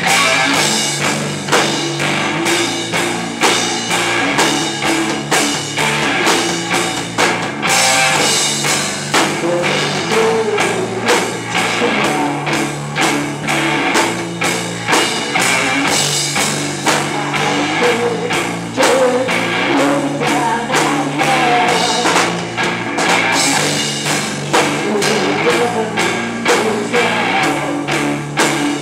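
Rock band playing live and loud: electric guitar and drum kit driving a steady beat, with a singer's voice coming through at times.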